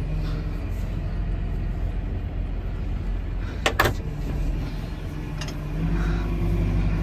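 Tractor engine running steadily at a low, even drone, with two sharp clacks in quick succession about halfway through.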